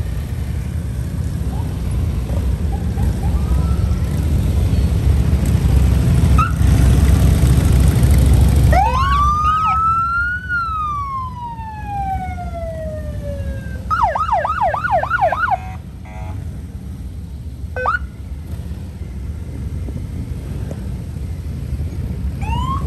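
Police motorcycles running past in a group, their engines loudest in the first half. A siren then sounds one long rising-and-falling wail, followed by a quick burst of fast yelps, a single short blip, and a couple of short chirps near the end.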